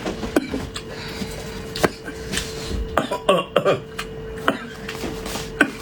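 Mouth-close eating sounds: chewing and slurping, with sharp clicks of chopsticks against a bowl, over a faint steady hum.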